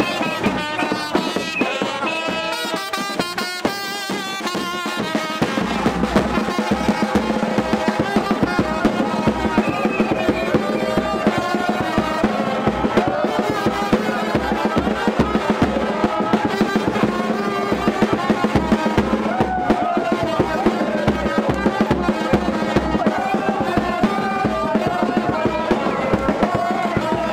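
Music with drums and a steady beat; the bass and low drum strokes come in strongly about five seconds in.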